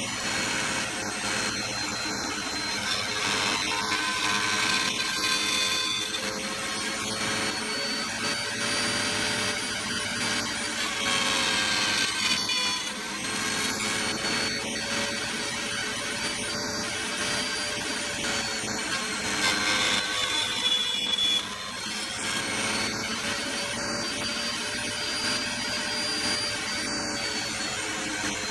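A bench-mounted power cutter under the workbench runs with a steady whine while a thin wooden rail is notched across it. The sound grows louder three times as the cutter bites into the wood, and the last of these drops off sharply.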